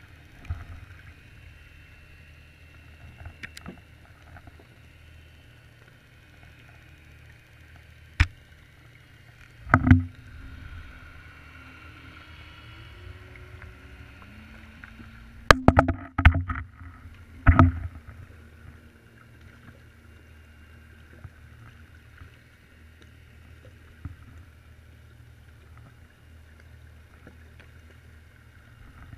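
Underwater sound through a camera's waterproof housing on the sea bottom: a steady low rumble with a faint hum that shifts in pitch. It is broken by sharp knocks, one about eight seconds in, a few around ten seconds, and a louder cluster from about sixteen to eighteen seconds.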